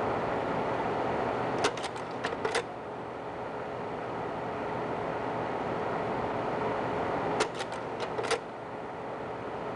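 Slide projector running with a steady fan hum, its slide-change mechanism clacking through a quick run of about five clicks less than a second long, once a little under two seconds in and again about seven and a half seconds in.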